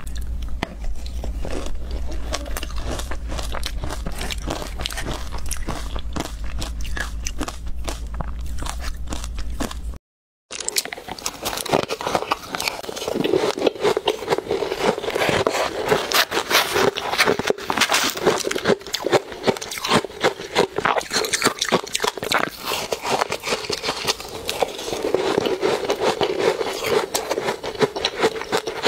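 Close-miked crunching and chewing of ice coated in matcha powder: dense, rapid crunches as the ice is bitten and ground between the teeth. About ten seconds in the sound cuts out briefly, then the crunching resumes louder and sharper.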